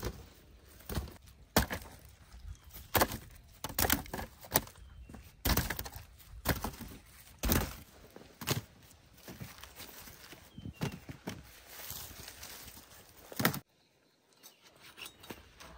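Cassava being chopped with a blade on wood: irregular sharp chops and knocks, roughly one a second, that stop suddenly near the end.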